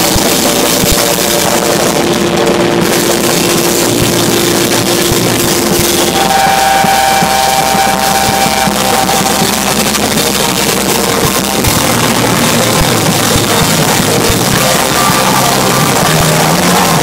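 Punk band playing live, loud throughout, with electric guitar and drum kit. A held note about two seconds in gives way to a higher held note around six seconds.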